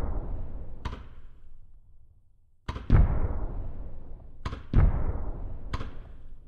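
Fireworks bursting: about six sharp bangs, some in quick pairs, each trailing off in a fading rumble, with a short lull before a second cluster of bangs.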